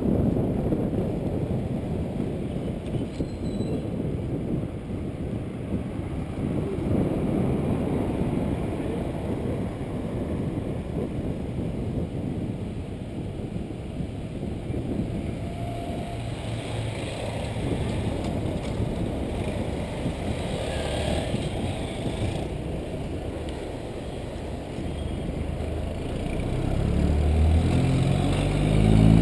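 Wind and road rumble on a bicycle's handlebar-mounted camera while riding through city traffic. Near the end a bus engine running close alongside grows louder, its pitch stepping up.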